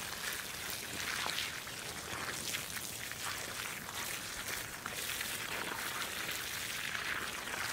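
Water spraying from a garden hose watering wand onto a bed of bare soil and young plants, a steady spray throughout.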